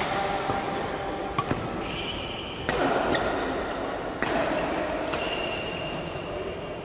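Badminton play: rackets striking shuttlecocks with sharp clicks several times, and court shoes squeaking on the sports floor in two long squeaks, echoing in a large hall.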